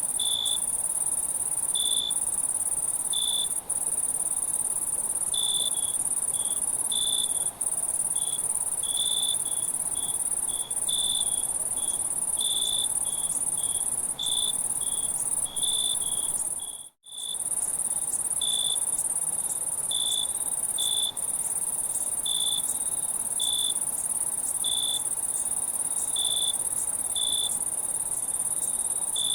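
Crickets chirping at night: a dense, steady high trill with a slower series of separate, lower chirps about once or twice a second. The sound cuts out for an instant about two-thirds of the way through.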